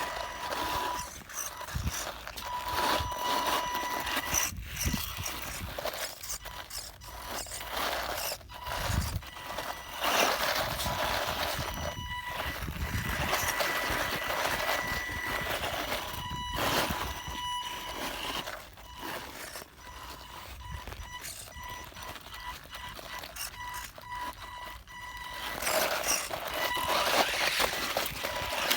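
Electric motor of an FY03 radio-controlled off-road truck whining as it climbs a dirt hill, with its tyres scrabbling on the soil. It runs in spurts with short pauses, labouring on the climb on swapped-in wheels.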